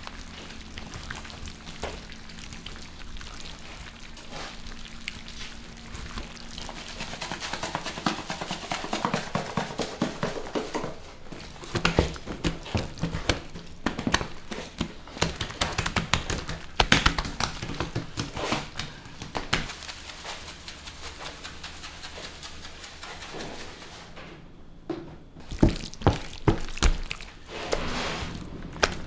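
Irregular knocks and clatters, coming in clusters around the middle and again near the end, over a faint low hum.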